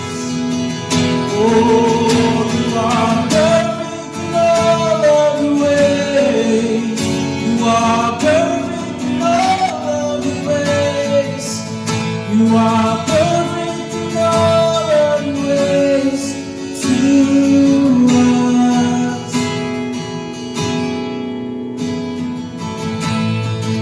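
Live worship music: acoustic guitar playing under a singer's drawn-out, gliding vocal lines.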